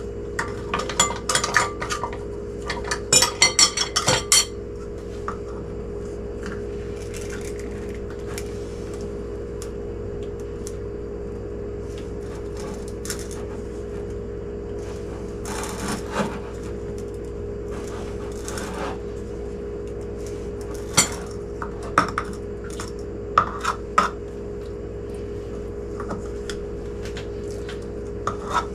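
Irregular clinks, knocks and scrapes of a measuring cup against a glass canning jar as brown sugar is packed down firmly, over a steady hum. The busiest clatter comes in the first few seconds, with more scattered knocks later.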